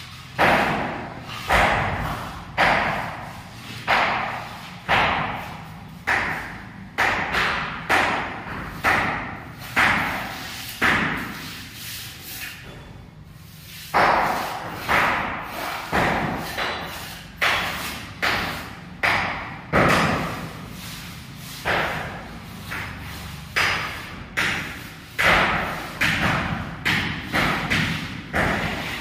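Mason's steel trowel sweeping and pressing across a freshly cemented chamber floor, one scraping stroke about every second, with a short pause a little before halfway.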